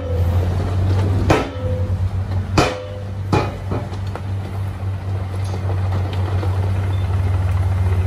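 Dump truck diesel engines running steadily while the raised steel bed unloads dirt and rock, with three sharp metallic bangs in the first few seconds as the load and tailgate knock against the body, the first two ringing briefly.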